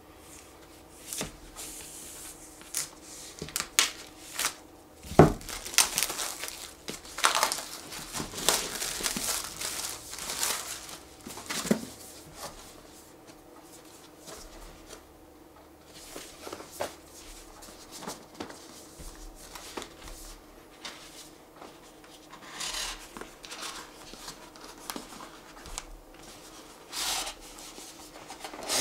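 Unboxing a Mac mini's cardboard retail box: a knife cuts the box's wrapping, then there are irregular bouts of crinkling and tearing as the wrap is pulled off, with scattered sharp knocks. Near the end the box is handled and its lid slides off.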